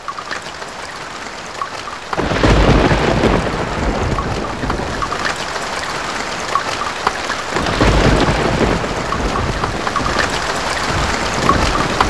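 Thunder-and-rain soundtrack of a Dolby Digital Pro Logic II logo trailer. Steady rain runs throughout, and thunder rumbles in twice, about two seconds in and again a little before the eight-second mark, each clap rolling away slowly.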